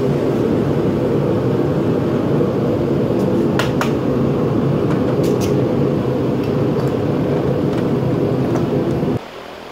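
Propane melting furnace burner running with a steady low rumble, with a few sharp ticks over it about a third and halfway through. The rumble cuts off abruptly near the end.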